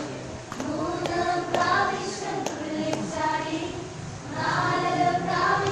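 A group of boys singing together as a chorus, with a few sharp claps or taps in the first three seconds.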